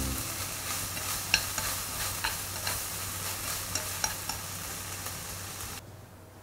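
Bean sprouts and fish cake sizzling in a nonstick wok over medium heat while being tossed with wooden chopsticks, with scattered light clicks as the chopsticks strike the pan. The sizzling drops away suddenly near the end.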